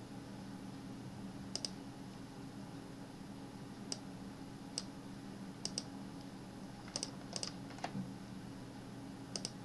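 Scattered sharp clicks of a computer mouse and keyboard keys, several in quick pairs, over a faint steady hum.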